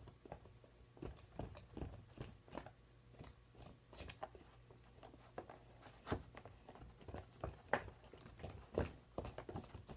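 Spoon stirring a thick glue-and-flour slime mixture in a bowl: faint, irregular clicks and scrapes, several a second.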